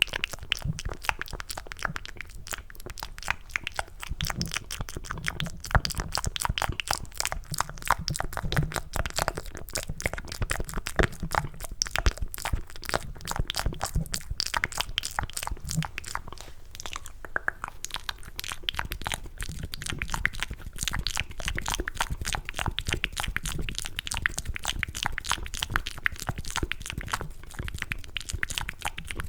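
Wet, sticky mouth sounds cupped close to the microphone: rapid clicking and smacking of tongue and lips in a dense, continuous stream, imitating the squelch of eating mac and cheese.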